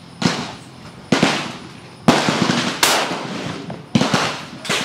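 Rifle shots at an outdoor range: about six sharp reports, roughly one a second, each trailing off in a short echo.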